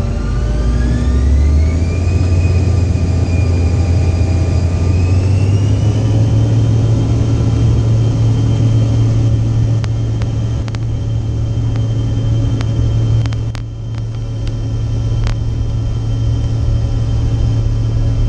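Airliner jet engines heard from inside the cabin, spooling up to takeoff thrust: a whine rising in two steps over the first six seconds, then a steady loud rumble with the whine held as the jet rolls down the runway on its takeoff run. A few faint clicks come during the roll.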